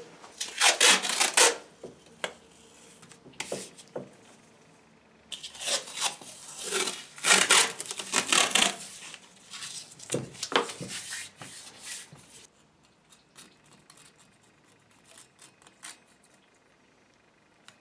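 Paper masking tape pulled off the roll in several loud ripping pulls and pressed down onto the steel anvil. Near the end, only faint scratches and ticks as a utility knife trims the tape along the edge.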